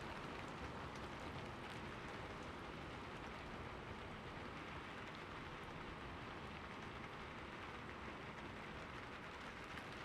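Faint steady rain.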